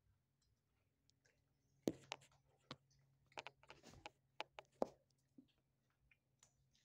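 Kitten eating from a plastic food bowl: a run of sharp clicks and crunches over about three seconds, starting with a louder knock about two seconds in and ending with another loud click.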